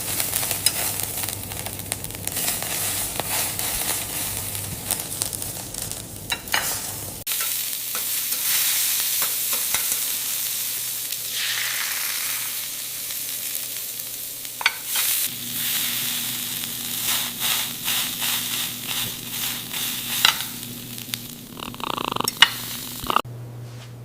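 Meatballs sizzling as they fry in a pan, with short clicks and scrapes of a utensil stirring them against the pan. The sizzle changes abruptly twice.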